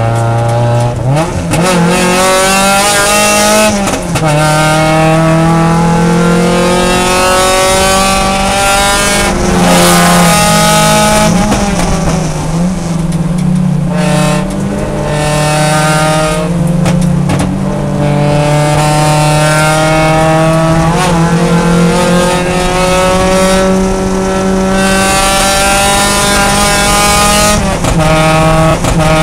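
Mazda Miata race car's four-cylinder engine at racing load, heard from inside the stripped cabin. Its note climbs in pitch and breaks off or falls back several times as the car accelerates, shifts and lifts for corners, over steady wind and road noise.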